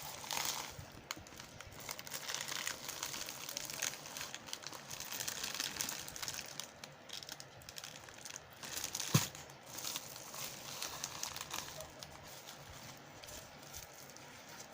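Packaging crinkling and rustling as it is handled and opened, with scattered small clicks and one sharp click about nine seconds in.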